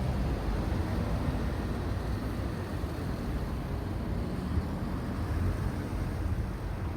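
Steady low rumble of road traffic passing by.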